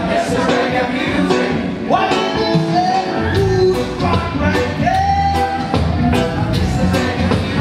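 Live reggae band playing: a male singer over drums, bass guitar and electric guitar, with steady cymbal strokes. The bass comes in heavier about three seconds in.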